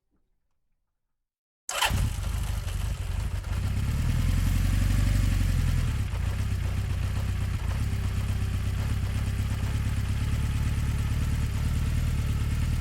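A combustion engine starting: after about two seconds of silence it catches suddenly and settles into steady running, a little louder for a couple of seconds before easing back to an even idle.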